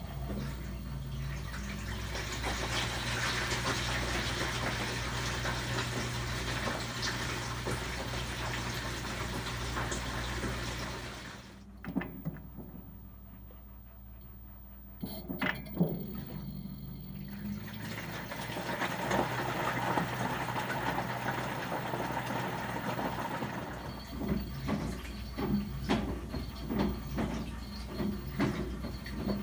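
LG WT7800 top-load washer in the wash phase of a tub clean cycle: water churning in the full tub under a steady motor hum. The sound drops off sharply for a few seconds about halfway, then comes back, and near the end it comes in rhythmic surges of sloshing.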